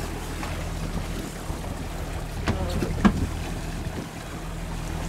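Twin Mercury outboard motors idling in neutral with a steady low hum, under wind and water wash. Two short sharp clicks come about two and a half and three seconds in.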